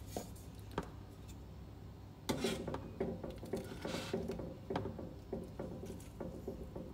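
Light clicks and clatter of metal kitchen utensils against a plastic colander lined with cheesecloth, as fresh ricotta curds are ladled in with a slotted metal spoon for straining.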